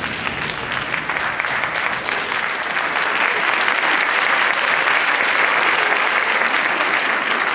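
Audience applauding, the clapping building over the first couple of seconds and then holding steady.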